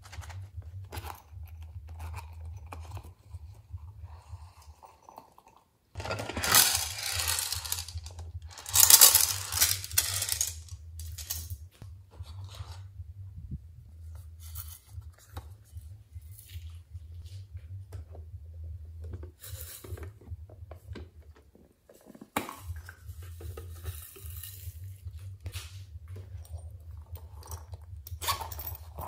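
Hands handling small plastic cases and a fabric watermelon-shaped pouch on a table: scattered taps, clicks and crinkly rustling, with two louder stretches of scraping, crinkling noise about six and nine seconds in.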